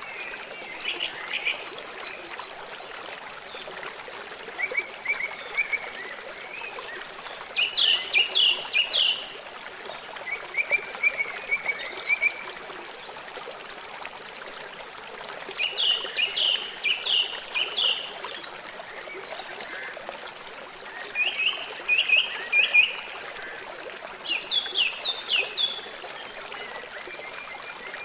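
A songbird singing short phrases of quick, downward-sliding notes, about seven phrases a few seconds apart, over the steady rush of running water from a stream.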